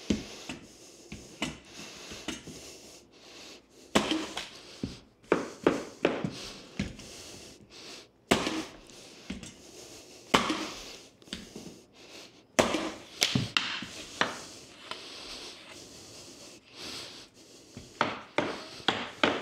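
Irregular sharp knocks and thuds, coming in clusters, as hardwood floor boards are fitted and driven home with a mallet and a mallet-struck pneumatic flooring nailer.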